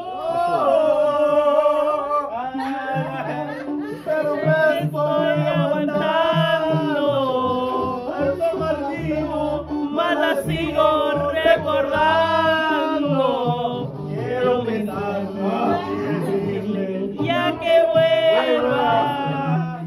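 A man singing a Spanish-language song at full voice, holding long notes with vibrato over recorded backing music.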